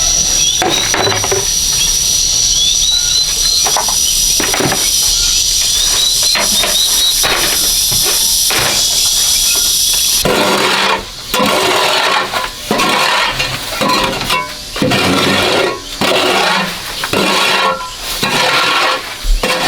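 A steady high hiss with a thin steady tone and short rising chirps. About halfway through it changes abruptly to repeated piglet squeals in irregular bursts.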